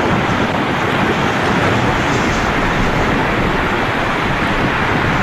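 Steady, loud rushing noise that holds at an even level throughout.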